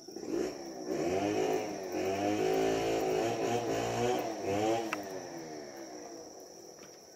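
A small engine revving up and down several times for about four seconds, then fading away.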